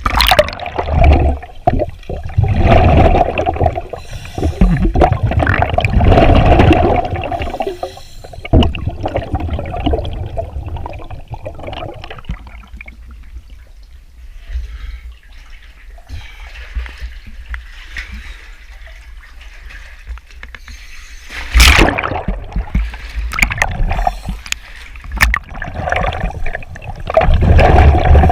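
Water splashing and gurgling as a cave diver moves through a flooded passage, loud and irregular for the first eight seconds, quieter after, with another loud surge about 22 seconds in and again near the end.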